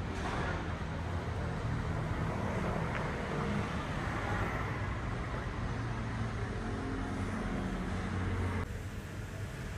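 Steady rumble of street traffic carrying in through open church doors. The level drops suddenly near the end.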